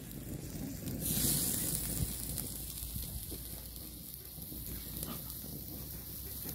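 Chicken and broth sizzling in a wide black metal pan as tomato slices are laid in, over a low rumble. The hiss swells about a second in, then settles.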